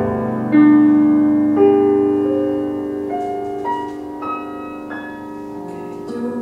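Grand piano played solo: single notes struck one after another, stepping higher in pitch, each left ringing under the next. The loudest note comes about half a second in, and the playing grows gradually softer after it.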